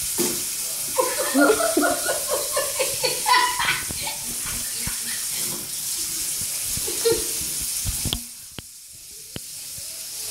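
Tap water running into a bathroom sink in a steady hiss, cut off about eight seconds in, followed by two light clicks.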